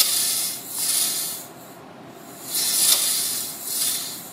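Metal slinky stretched along a floor, its coils shimmering with a high metallic hiss as compression pulses are pushed along it; the hiss comes in several swells.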